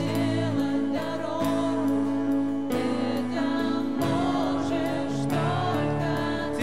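Christian worship song played by a church band: held chords under a sung melody, with light percussion strokes keeping time.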